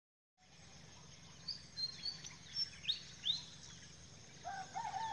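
Small birds chirping, about half a dozen short, high calls in quick succession, then a rooster starting to crow near the end, over a low steady background hum.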